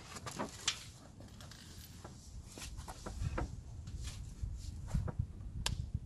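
Handling noise of an AR-15 rifle being lifted from a wooden bench and brought to the shoulder: a few faint clicks and knocks with low rustling and rumble. No shot is fired.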